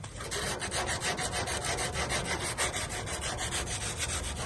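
Quick back-and-forth scrubbing with an abrasive on the copper U-bend of an air-conditioner condenser coil, several even strokes a second: cleaning the corroded tube bright before brazing the leak.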